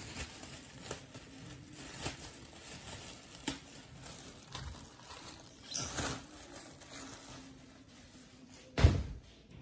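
Faint handling noise from a pair of Chaco strap sandals being moved and turned on a display stand: soft rustles and light taps, with one louder thump near the end.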